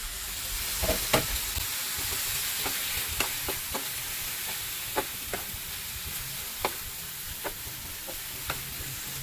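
Liver, onions and garlic frying in a pan, sizzling steadily, with scattered clicks of a utensil against the pan as the mixture is stirred.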